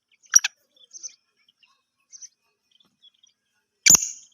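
Black francolin calling: a short sharp note about half a second in and a few faint chirps, then a loud harsh call that starts near the end.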